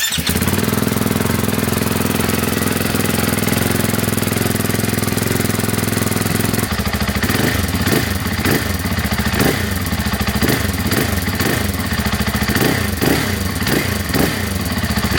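KTM 500 EXC-F single-cylinder four-stroke dirt bike engine idling steadily, then from about seven seconds in revved with short throttle blips over and over, each rising and falling back to idle.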